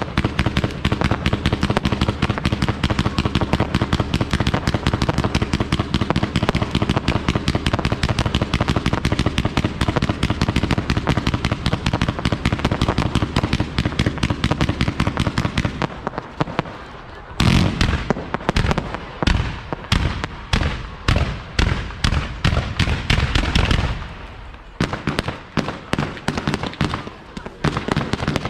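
Fireworks display: a dense, rapid barrage of bangs for a little over half the time, then separate loud bursts a few per second, with a short lull near the end.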